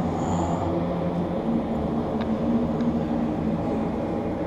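Steady low mechanical hum holding a couple of low tones, with a brief high-pitched beep right at the start and a faint tick about two seconds in.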